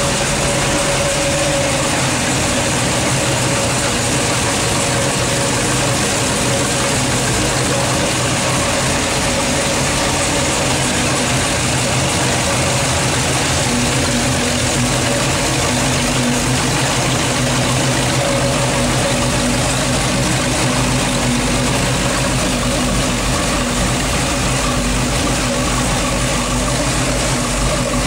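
Modified LS V8 with a Comp LSR camshaft, 1 3/4" long-tube headers and 3" dual exhaust through Flowmaster Big Block II mufflers, idling steadily.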